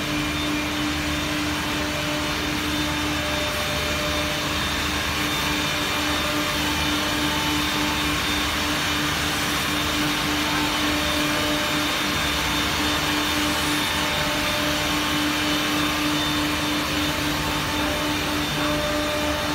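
Yow Cherng four-head CNC mortising machine running, its spindles cutting mortises in curved wooden chair parts: a steady pitched tone over a loud, even hissing rush of cutting and dust extraction.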